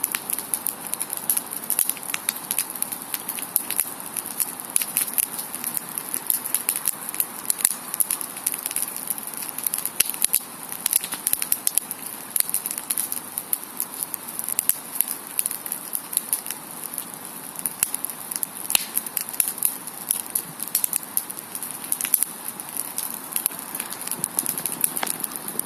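Wood campfire crackling steadily, with frequent sharp pops and snaps over a constant high hiss.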